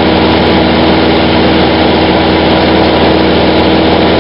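Cessna 150's four-cylinder Continental O-200 engine and propeller droning steadily in flight, heard from inside the cockpit.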